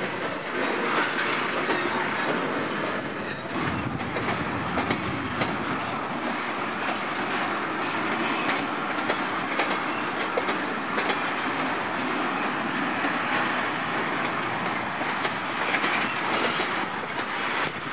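Freight train of tank cars rolling past: steady rumble of steel wheels on the rails with frequent clicks as the wheels cross joints, and a few brief, faint high squeals from the wheels.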